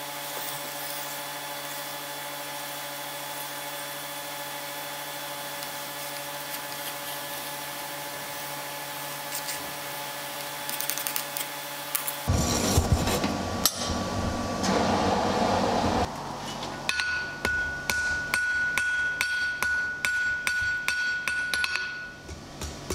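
Steady sustained tones for about the first half, then a blacksmith's hammer striking hot mild steel on an anvil. The blows come as a rapid series over the last few seconds, with a steady ring from the anvil.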